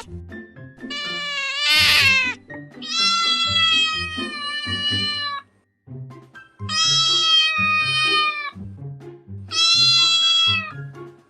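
Domestic cat meowing: four long, drawn-out meows, each a second or more, the first rising into a loud peak about two seconds in. Background music with low notes plays throughout.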